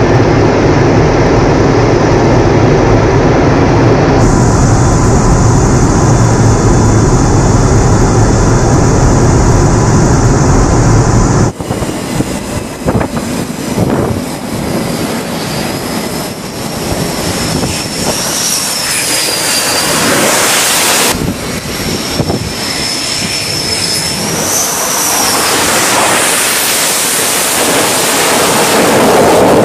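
Jet engines throughout: a loud, steady low rumble of jets in flight, then after a sudden cut about 11 seconds in, F/A-18 Super Hornet jets on a carrier flight deck with a high turbine whine that rises and falls twice, building loud again near the end as a jet launches off the catapult.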